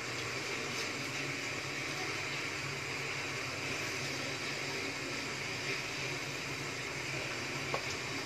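Steady background hiss with a low hum, and one faint click near the end.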